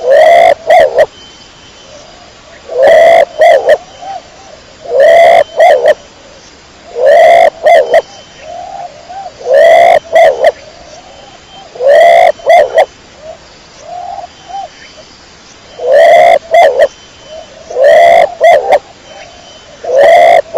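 Domestic pigeon cooing: a short cluster of coos repeated about every two seconds, loud and clear, with one weaker call partway through.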